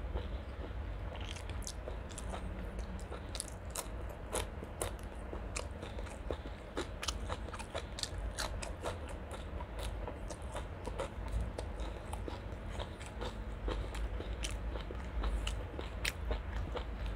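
Close-miked chewing of a mouthful of rice, chicken curry and raw green vegetable stems, with many small crisp crunches throughout.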